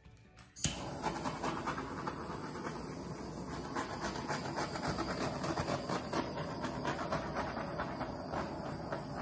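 Handheld torch lit with a sharp click about half a second in, then burning with a steady hiss as it is played over wet acrylic paint.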